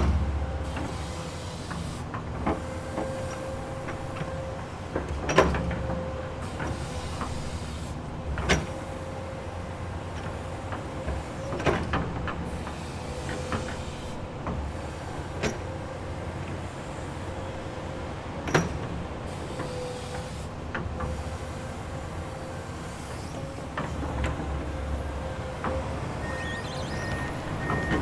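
Komatsu hydraulic excavator working: the engine runs steadily with a held whine over a pulsing low rumble, broken by sharp clanks every few seconds, the loudest right at the start. A high beeping starts near the end.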